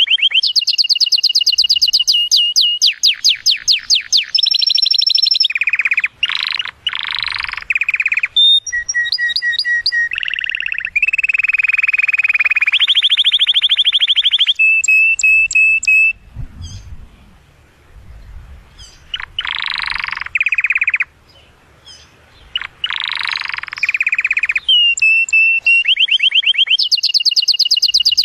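Yellow domestic canary singing an excited male's breeding song: long rolls of rapid, evenly repeated high notes and trills that change from phrase to phrase, with a few short pauses about two-thirds of the way through.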